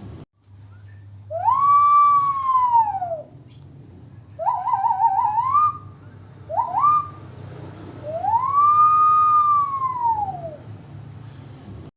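A person imitating a police siren by mouth: two long wails that rise and fall, with a fast warbling yelp that climbs in pitch and a short upward chirp between them.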